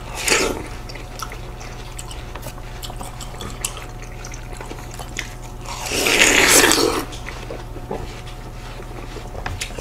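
Seedless watermelon being bitten and chewed: soft wet juicy crunching and small clicks, with one louder juicy slurp about six seconds in that lasts about a second.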